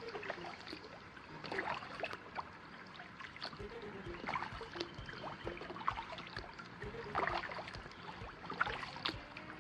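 Kayak paddle strokes splashing and dripping in the water, a stroke about every second and a half.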